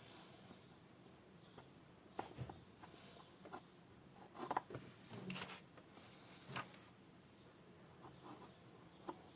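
Faint handling sounds of hands working a small plasticine figure: scattered light taps, clicks and soft rubbing, a little louder near the middle.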